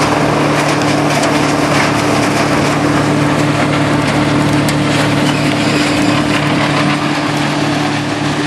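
Farmhand 8-foot tub grinder running steadily while grinding wood, its Allis Chalmers turbo-diesel engine giving a constant hum under a dense spray of small ticks as ground wood comes off the discharge conveyor.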